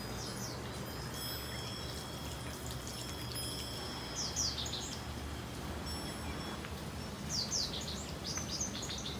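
Small birds chirping in quick bursts of short falling notes, three times, the last burst the longest. Under them, faint high ringing tones sound now and then and hang for a second or more.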